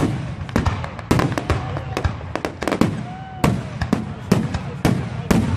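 Fireworks display: shells exploding in quick succession, about two or three bangs a second, with a few short whistles among them.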